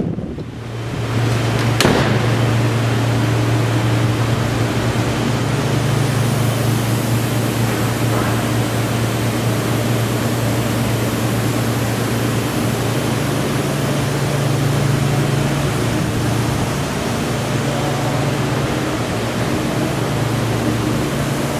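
Steady low mechanical hum with an even rushing noise from running machinery. A single sharp click comes about two seconds in.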